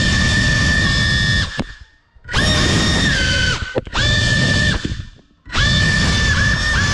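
Brushless motors and propellers of a GEPRC CineLog35 ducted FPV cinewhoop drone whining at a high pitch. The whine cuts out abruptly and surges back as the throttle is chopped and punched: about two seconds in, briefly near four seconds, and again around five seconds.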